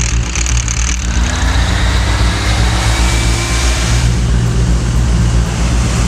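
A fire truck's engine running steadily, a low rumble under a loud rushing hiss that fits water jetting from a fire hose.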